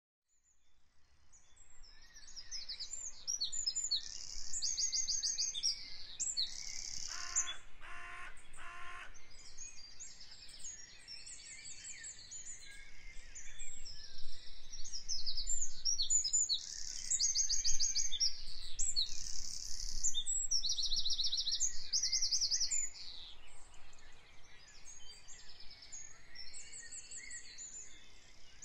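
A chorus of songbirds, many rapid chirps and trills overlapping, fading in over the first two seconds. About eight seconds in, three short, lower calls sound in a row.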